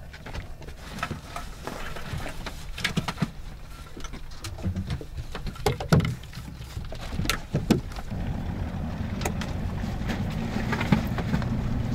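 Scoter decoys being handled and set out from a boat: a scatter of sharp knocks and clunks, over the steady low rumble of the boat's motor, which grows fuller about eight seconds in.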